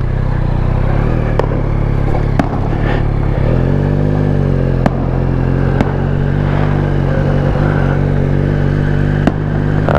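Motorcycle engine running steadily under way, picked up by a helmet-mounted camera, its pitch shifting slightly about a third of the way in. Several sharp clicks break through at intervals.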